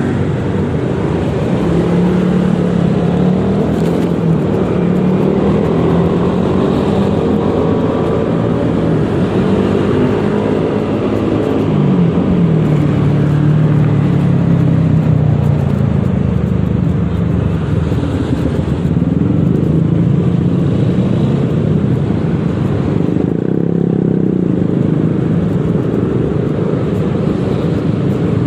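Yamaha XMAX 300 scooter engine running while riding in traffic, its pitch easing off and rising again a few times, most clearly about twelve seconds in, over a steady noise of surrounding traffic.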